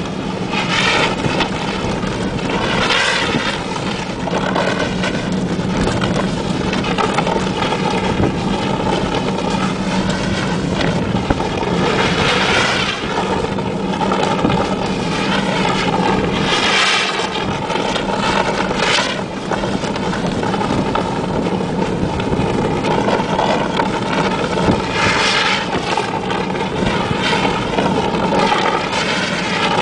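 Mitsubishi L200 pickup driving slowly on a snowy road, its engine running steadily, with recurring swells of hiss every few seconds.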